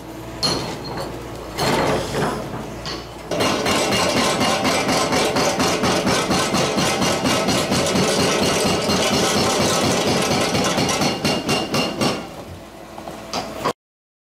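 Demarec DFX-32 hydraulic breaker hammer on an excavator pounding concrete. A couple of short bursts of blows come first, then a rapid, steady run of blows starts about three seconds in and stops near the end. The sound then cuts off suddenly.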